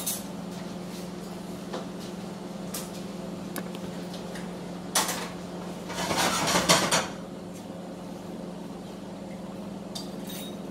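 Kitchen crockery and pans being handled on a worktop: a few light clicks, then a sharp clatter about five seconds in and a longer, louder rattle of dishes about a second later, over a steady low hum.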